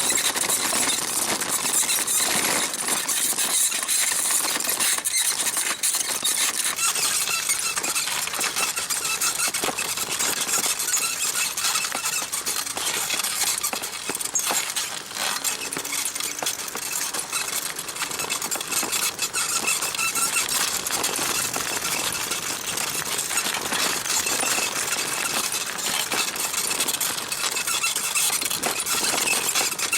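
Small rebuilt Mifa bicycle saddle squeaking loudly and without let-up as a rider rocks on it, over a steady hiss.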